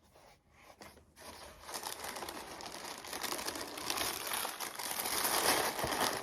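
Wrapping inside a shoebox being crinkled and pulled open, faint at first, then continuous crinkling that grows louder from about a second and a half in.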